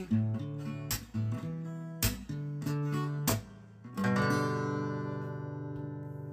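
Acoustic guitar strumming a few chords about a second apart, then a final chord struck about four seconds in that rings out and slowly fades.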